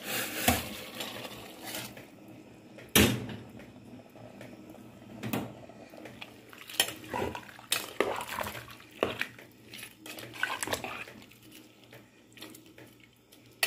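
A metal spoon stirring stew in an aluminium pressure cooker pot, scraping and clinking against the metal at irregular intervals, loudest about three seconds in. Hot water is poured into the pot during the first couple of seconds.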